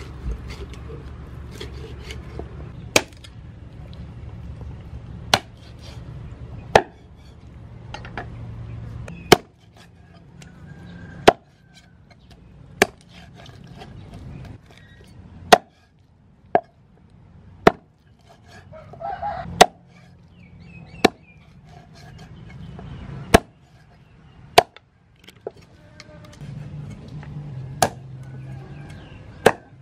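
Meat cleaver chopping raw chicken into pieces on a thick wooden chopping block: sharp single chops, irregularly spaced, about one every one to two seconds.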